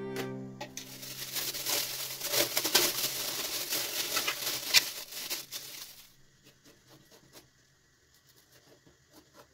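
Dense crackling and rustling with many small clicks for about five seconds, then only faint scattered clicks.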